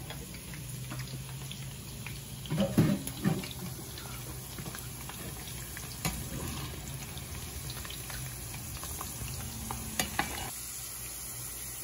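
Small potato cubes frying in a pan of hot oil, a steady sizzle, with a slotted metal spoon stirring them and knocking against the pan a few times, loudest about three seconds in.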